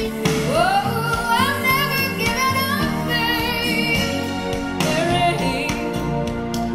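Recorded song played through a pair of Wharfedale EVO 4.4 floor-standing loudspeakers: a woman singing a slow line with wavering, gliding notes over guitar and band backing.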